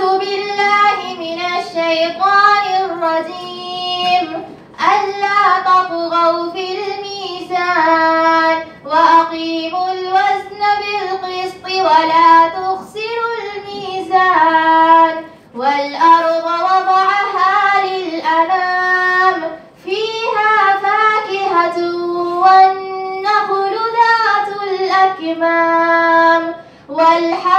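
A young woman's solo Quran recitation, chanted in Arabic in long melodic phrases with wavering, drawn-out held notes, pausing briefly for breath between verses.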